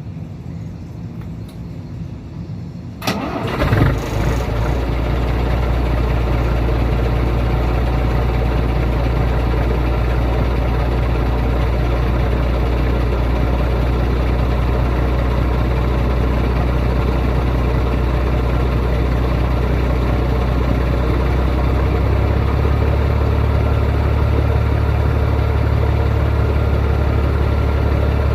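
Scania 111 truck's inline-six diesel engine cranked and catching about three seconds in, then idling steadily, its running note shifting slightly near the end. Its air compressor makes a noise that the owner calls strange.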